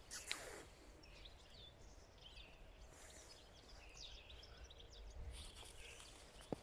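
Quiet outdoor ambience: small birds chirping faintly at a distance over a low steady rumble, with a crunch of a step in snow just after the start and a sharp click near the end.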